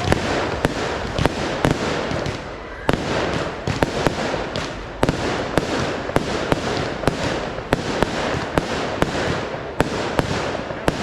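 Fireworks display: many sharp bangs, a few each second, over continuous crackling from bursting shells.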